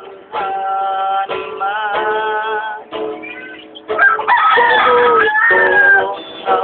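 Acoustic guitar strummed with a man singing long held notes. About four seconds in, a rooster crows loudly over the music for about two seconds.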